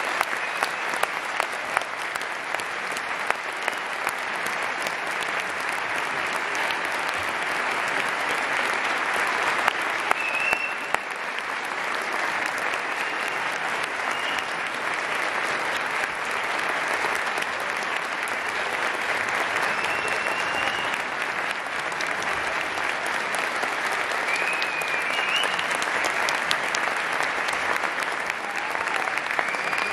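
Audience applauding steadily, a dense patter of many hands clapping without letting up.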